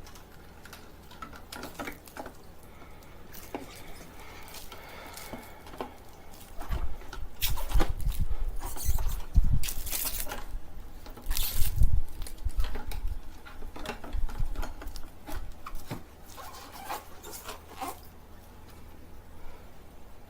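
Irregular clicks, taps and rustling of equipment and packaging being handled, with a few heavier low bumps and knocks in the middle.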